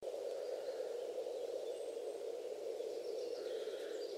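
Outdoor nature ambience: a steady, even noise with faint, scattered bird chirps above it.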